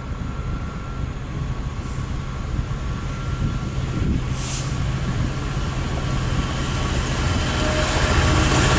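Class 66 diesel freight locomotive, with its EMD two-stroke V12, approaching with a train of coal hopper wagons. A steady low engine drone grows steadily louder over the last few seconds as the train draws near, with wheel and rail noise building under it.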